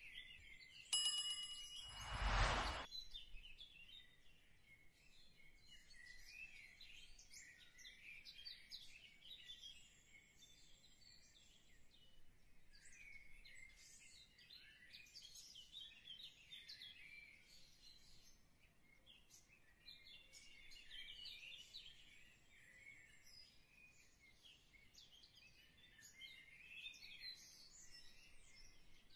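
A bright ringing chime about a second in, quickly followed by a short whoosh. After that come faint, irregular bird chirps and song, which last to the end.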